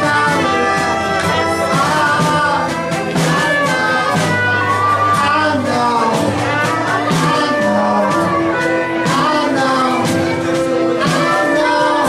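Live band music with a steady beat.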